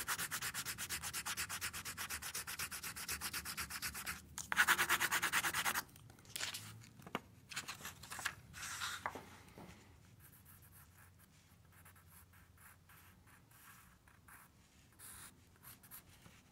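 Pencil scribbling hard back and forth over paper laid on a wooden block, a fast, even run of scratchy strokes that grows louder about four seconds in and stops about two seconds later. After that, only faint scattered small handling sounds.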